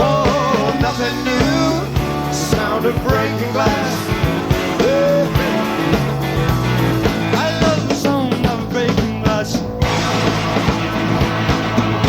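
A live rock band of electric guitars, bass guitar and drums playing at a steady beat, with a bending melodic line over the top. About ten seconds in, the cymbals and bright top end drop away while the band carries on.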